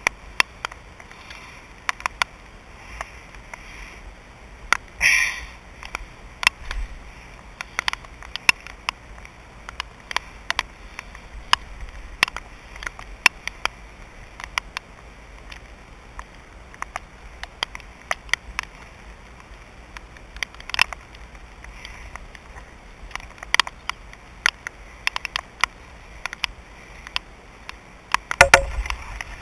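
Steady rain: an even hiss with many scattered sharp ticks of drops striking close by. A louder brief noise comes about five seconds in and again near the end.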